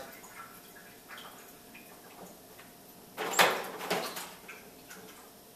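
Faint clicks, then a short burst of clattering noise about three seconds in, followed by a smaller one.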